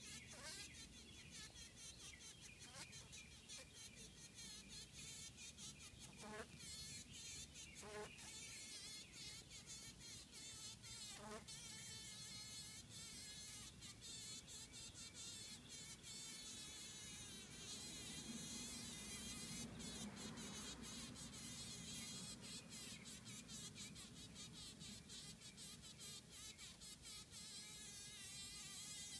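Honey bee caught in a spider's web buzzing faintly in short, irregular bursts as it struggles against the spider.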